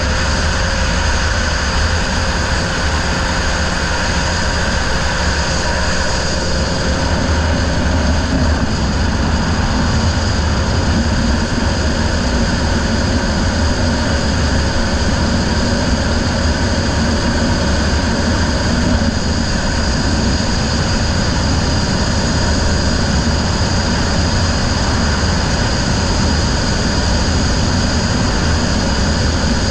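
Racing riverboat's outboard motor running steadily at speed, a constant, unchanging engine drone over a heavy low rumble.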